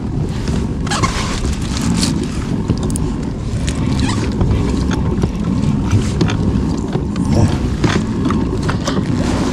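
Kayak being paddled backward: irregular paddle splashes and knocks over a steady low rumble of wind and water.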